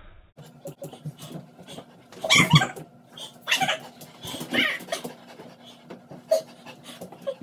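A wet dog panting and whining during a towel-drying, with several short whining cries about a second apart, the loudest about two and a half seconds in.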